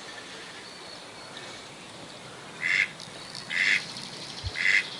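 Duck quacking: three short, loud quacks about a second apart, beginning nearly three seconds in, over a faint steady background.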